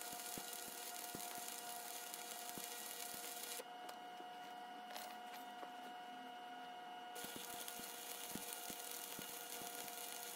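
Stick welding with 6013 rod: the arc gives a steady crackling hiss with scattered sharp pops. It stops for about three and a half seconds partway through, then strikes up again and keeps crackling.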